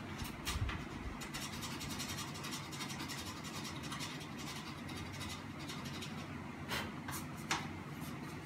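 Small clicks and scrapes of hand work on a stopped ceiling fan's blades and fittings, with three sharper taps near the end, over a steady low hum.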